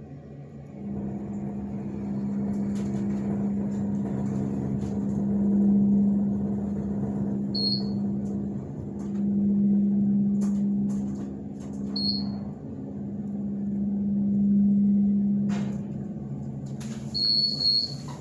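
2003 KONE hydraulic elevator's pump motor running steadily during a ride, a low hum that swells and fades in loudness and stops shortly before the end. Three short high-pitched beeps sound over it, the last one longer, along with a few light clicks.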